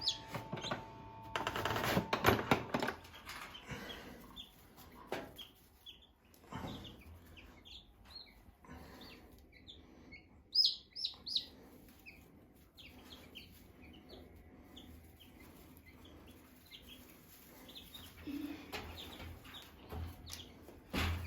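Baby chicks peeping: many short, high cheeps scattered through the whole stretch. A brief rustle comes about two seconds in.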